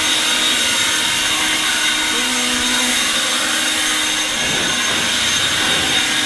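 EGO cordless leaf blower running: a steady rush of air with a constant high fan whine.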